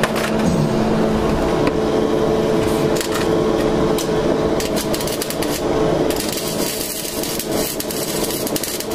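Welding on the rusted catalytic converter's O2 sensor bung: an irregular crackle of sharp clicks over a steady hiss, meant to seal a pinhole air leak that was throwing off the wideband O2 reading.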